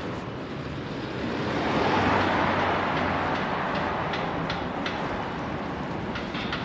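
A car passes on the road beside the quay, its noise swelling to a peak about two seconds in and then fading. After that comes a steady run of sharp clicks, about three a second, in step with walking footsteps on the paved quay.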